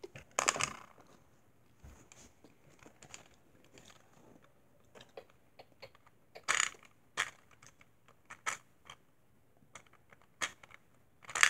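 A toy gumball machine worked by hand, with a penny going into the coin slot and the knob being turned to release a gumball. It gives irregular small clicks and rattles, with a few louder clacks in the second half.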